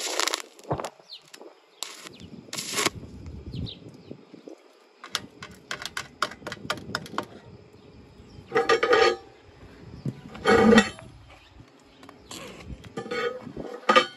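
Stick-welding arc from a 4043 aluminum electrode on a thin aluminum can, struck and lost again and again: short crackling, sputtering bursts with gaps between them, a run of rapid clicks in the middle, and longer bursts in the second half.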